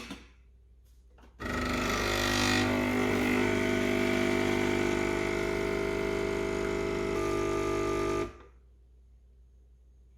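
Coffee machine's pump buzzing steadily while it brews, starting abruptly about a second and a half in and cutting off after about seven seconds.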